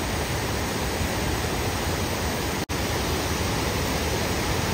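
Steady rush of water falling over a small waterfall and weir. It cuts out for an instant once, about two-thirds of the way through.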